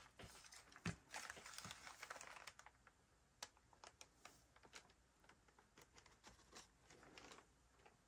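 Faint rustling of paper with scattered light clicks and taps, the sharpest right at the start and about a second in.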